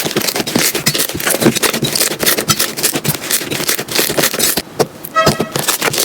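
Slime being squeezed and pressed by hand, giving a dense run of crackling clicks and pops that thins out near the end, with a brief squeaky squelch just after that.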